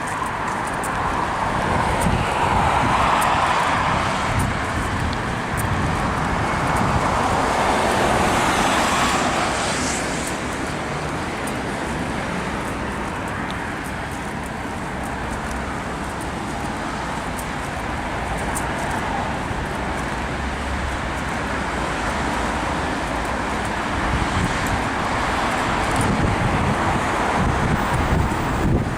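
Steady outdoor traffic noise of passing vehicles, louder for the first nine seconds or so and then easing to a steady wash.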